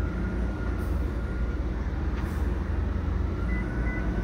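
A truck's engine running nearby, giving a steady low rumble, with a faint steady high whine that fades out midway and comes back, and two short high beeps near the end.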